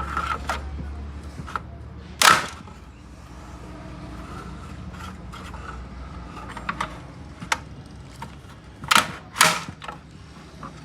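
Sharp knocks and clicks of hand tools against metal parts during engine work: a loud one about two seconds in, a quick pair near the end, and lighter clicks between, over a low steady hum.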